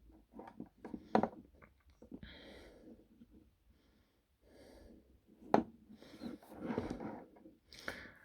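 Plastic Transformers action figure being handled and turned in the hands: scattered light clicks and rubbing, with a sharper click about a second in and another about five and a half seconds in.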